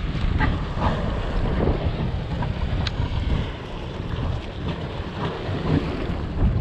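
Wind buffeting the microphone over the running of a two-stroke stand-up jet ski engine on the water.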